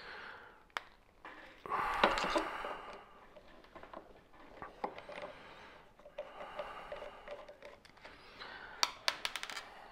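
Small metal clicks and scrapes of a T9 Torx screwdriver being worked on a folding knife to unscrew and remove its washer, with handling of the small parts. A louder rustling noise comes about two seconds in, and a quick run of clicks comes near the end.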